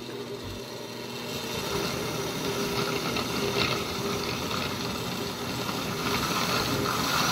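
Oster countertop blender running at speed, its motor humming steadily as the blade purées chile pieces and liquid into a smooth red sauce.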